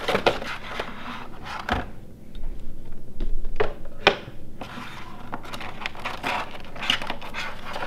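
Handling noise from a diecast model airplane's packaging: a clear plastic tray and cardboard box being pulled open, with scattered clicks, knocks and plastic rustling.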